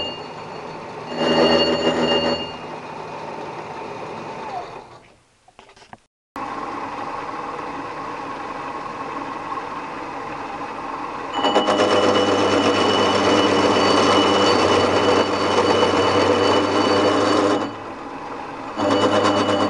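Milling machine running with a gear cutter, cutting the teeth of a 72-tooth steel gear: loud stretches with a steady high ring alternate with quieter running. About five seconds in it winds down with a falling tone to near silence, then runs again.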